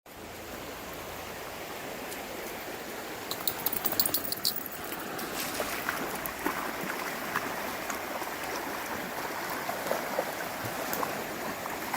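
Steady rushing of a fast, rain-swollen river. A short run of sharp clicks comes about three to four and a half seconds in, with a few more scattered through the rest.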